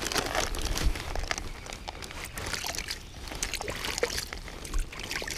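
Lake water splashing and trickling as it is scooped by hand into an open plastic zip-top bag of oat pack bait. It comes as irregular small splashes, with the plastic bag handled in between.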